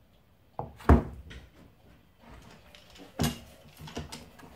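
Wooden knocks and thuds of plywood panels being set down and shifted on a glued-up stack, with rustling handling noise between; the loudest knock comes about a second in, another sharp one a little after three seconds.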